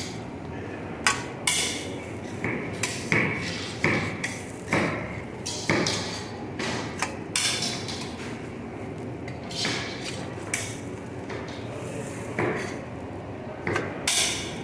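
A dozen or so sharp metal knocks and scrapes at irregular intervals: a steel spatula working on a flat iron dosa griddle and a steel plate being handled, over steady background noise.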